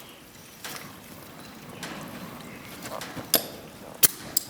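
A handful of sharp clicks and knocks, the loudest two about three and a half and four seconds in, with no motor running: a dead cordless impact wrench being handled and clicked.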